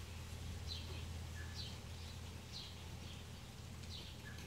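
A bird repeating a short, falling chirp about once a second, over a faint low hum.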